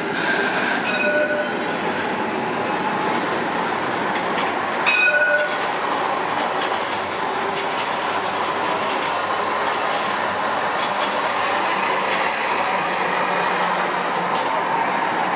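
Modern low-floor street tram running past close by on street track, its wheels rolling on the rails. About five seconds in there is a brief louder sound with a short ringing tone.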